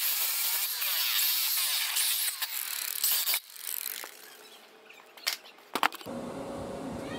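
Angle grinder with a coarse 24-grit sanding disc grinding the paint off a steel lawnmower deck. The grinding stops about three and a half seconds in, and a couple of sharp clicks follow.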